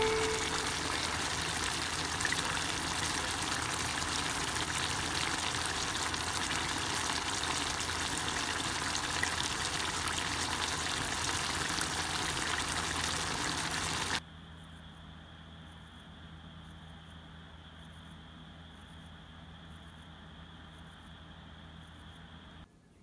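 Chicken and shimeji mushrooms bubbling and sizzling in their own juices in a Staub enameled cast-iron pot, a steady hiss. About fourteen seconds in it cuts off suddenly to a much quieter room hum with a faint high whine.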